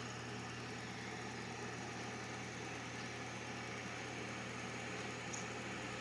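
Microwave oven running with a steady electrical hum.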